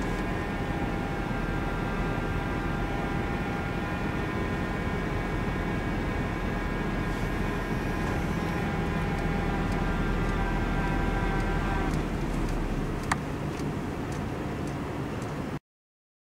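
Safari vehicle's engine running steadily with a low rumble and a humming tone. There is a single sharp click about thirteen seconds in, and the sound cuts off abruptly near the end.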